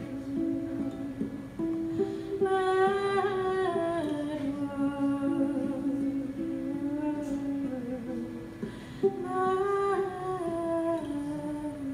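A woman's voice singing a wordless, hummed melody in long notes that glide up and down, over steadily repeated plucked notes on an acoustic string instrument.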